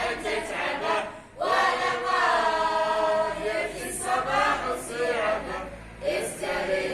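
A group of voices singing a scout song together as a choir. They pause briefly about a second in, then hold a long sustained line.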